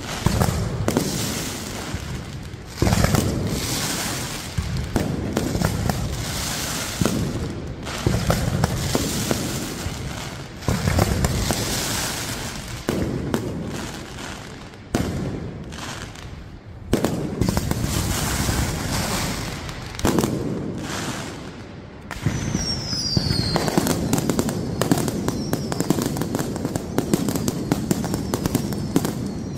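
Fireworks going off continuously: dense crackling and popping from crackling stars and firecrackers, with repeated booms and surges in loudness. About three-quarters of the way through there is a brief falling whistle.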